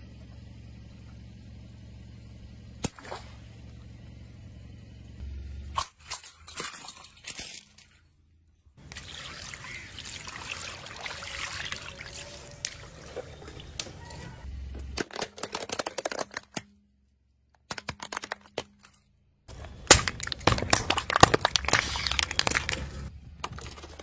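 A car tyre rolling over and crushing a series of objects, in short clips with cuts between them. Early on there is a steady low hum as a water balloon is squashed, with one sharp snap about three seconds in. In the middle, paint-filled rubber gloves squelch and splash as they are crushed. Near the end comes loud crackling and crunching as a plastic box of Christmas baubles is crushed.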